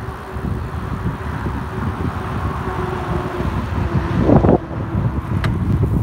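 A minibus coming up from behind and driving past close by: its engine and tyre noise builds and peaks about four seconds in. Wind buffets the microphone throughout.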